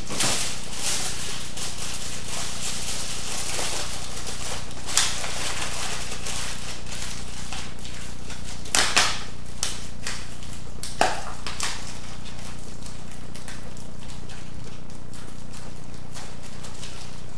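Aluminium foil being crumpled and pressed by hand, with a few short crackles about 5, 9 and 11 seconds in, over a steady low hum and hiss.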